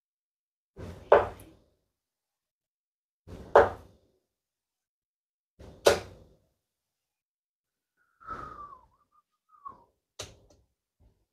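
Three steel-tip darts thud into a Winmau Blade 5 bristle dartboard, one every couple of seconds. A short wavering squeak and a sharp click follow near the end as the darts are pulled back out of the board.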